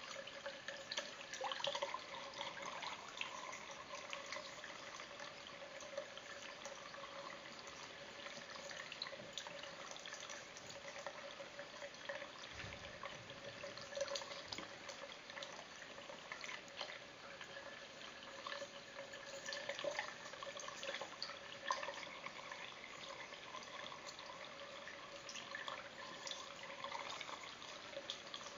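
Thin stream of tap water running from a bathroom faucet into the sink, with small irregular splashes and drips as a cat laps at the falling stream. Faint and steady throughout.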